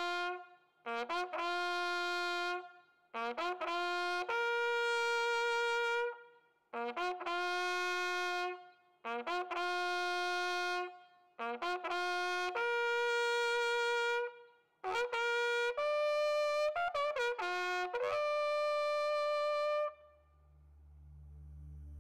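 A bugle sounding a military bugle call: a string of clear held notes in phrases with short breaths between, many phrases opening with a quick lower note, the call ending on a held note about two seconds before the end. A low drone fades in after the call stops.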